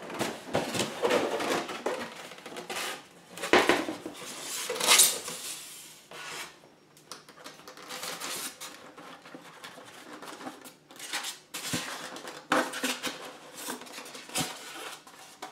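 Cardboard box and styrofoam packaging of an RC car kit being handled: irregular rustling, scraping and knocks as the box is turned over and opened and a radio transmitter is lifted out of its foam tray, with two louder knocks about three and a half and five seconds in.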